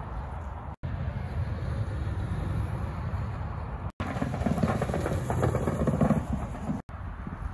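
Low rumble of wind and rolling noise, broken by three brief dropouts where clips are joined. About four seconds in, a velomobile rolls past at speed, a rough rumble of tyres on tarmac that builds to a peak around six seconds and then cuts off.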